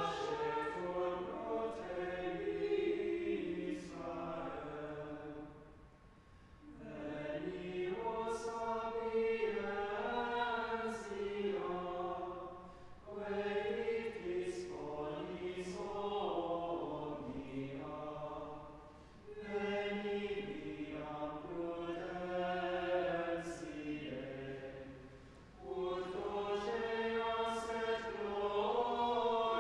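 Church choir singing a chant-like piece, in phrases of about six seconds with short breaks between them.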